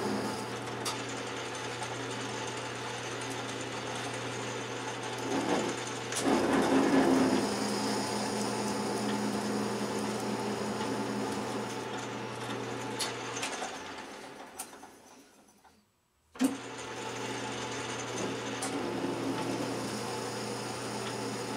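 Atlas metal lathe running and taking a facing cut, a steady machine hum with a fast whir, sped up four times. A little after halfway it fades out to silence, then comes back with a sharp click and runs on steadily.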